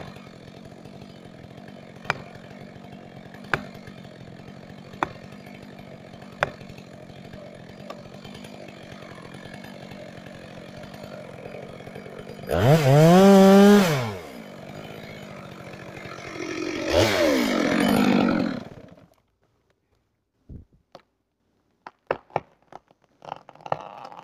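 Chainsaw running at idle, with a sharp tick about every second and a half, then revved hard twice and switched off about nineteen seconds in. A few light knocks follow after it stops.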